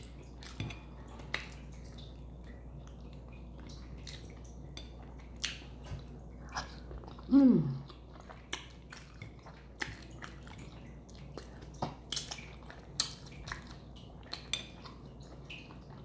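A person chewing food with many wet mouth clicks and smacks. About seven seconds in there is one short, loud vocal sound that falls in pitch.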